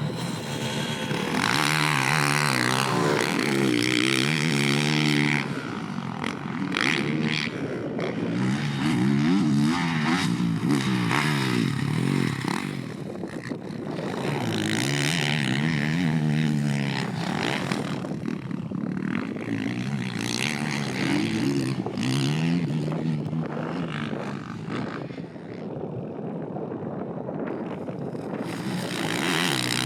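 Honda CRF450R motocross bike's single-cylinder four-stroke engine being ridden hard, its pitch climbing and dropping again and again as it revs up and shifts. It eases off briefly about halfway through and again near the end.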